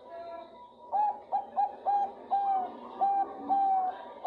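Female Bangkok-strain zebra dove (perkutut) cooing to call a male. After a faint note, a run of clear coos starts about a second in, each with a short upward scoop into a held note. The coos come quickly at first and grow longer as the phrase goes on.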